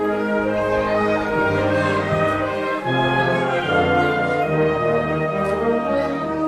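Wind band of clarinets, saxophones and brass, including tubas, playing full sustained chords that come in loud right at the start.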